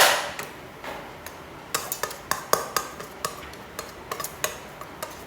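A utensil knocking and clicking against a cooking pot in quick, irregular strikes, with one sharp knock at the start.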